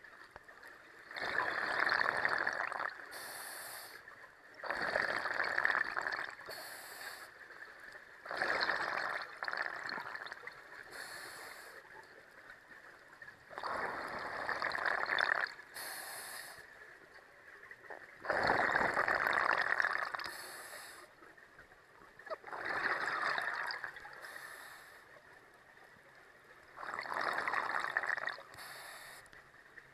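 Scuba diver breathing through a regulator underwater: a short high hiss on each inhale, then a gurgling rush of exhaust bubbles lasting a second or two. About seven slow, even breaths.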